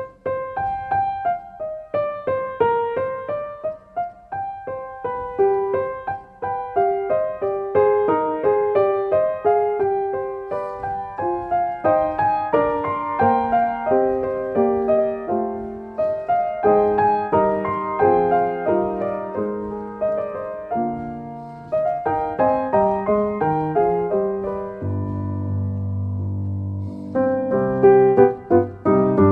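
Background piano music: a melody of separate notes over lower accompanying notes, with a held low chord about 25 seconds in before the notes pick up again.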